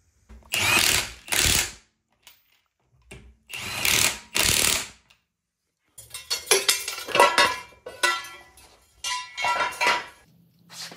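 Power impact wrench fired in short bursts, tightening the wheel's lug nuts. The later bursts rattle rapidly as it hammers.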